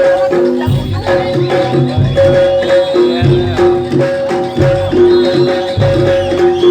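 Live jaranan music from a Javanese gamelan-style ensemble: drum strokes in a steady beat under a melody of held notes.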